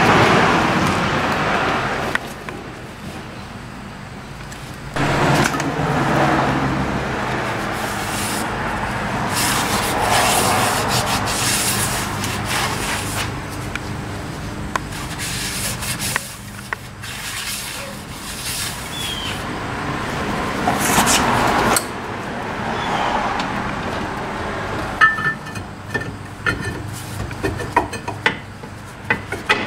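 A rag wiping and rubbing over a new steel brake drum, degreasing it. In the last few seconds come sharp metal clicks and knocks as the drum is handled and fitted.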